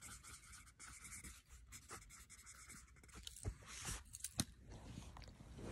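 Faint scratching of a pen writing on lined notebook paper, followed by a few sharp clicks and knocks about three and a half to four and a half seconds in.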